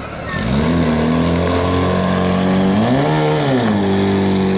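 Portable fire pump's engine throttling up about half a second in, rising in pitch, then briefly revving higher and dropping back near the middle before holding at a high, steady speed, driving water through the hose lines.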